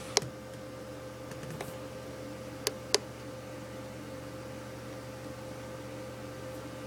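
Room tone: a steady low hum and hiss, with a click just after the start and two sharp clicks close together about three seconds in.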